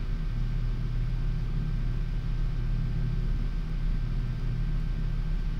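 Steady low background hum in a room, with a faint steady whine above it. No clear clicks or knocks stand out.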